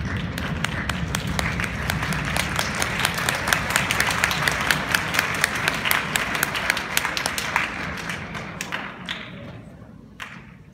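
Audience applauding, with loud single claps close by among the crowd's clapping; the applause dies away near the end.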